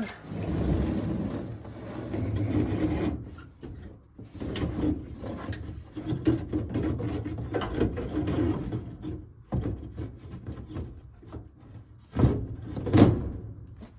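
A drop-ceiling panel being slid and pushed into the ceiling grid, scraping and rubbing in stretches, then two sharp knocks near the end.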